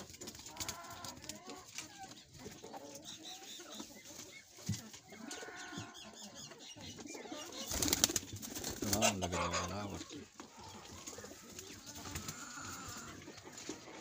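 Domestic pigeons cooing now and then in a loft, with a brief rustling burst about eight seconds in.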